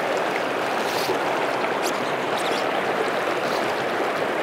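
Small stream running steadily, its water rushing where it spills past a jam of sticks into a pool.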